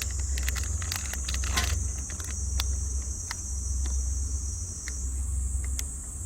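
Scattered light clicks and clinks as solid fire-starter fuel is set into a metal fire pit, most of them in the first two seconds, over a steady high hiss and a low hum.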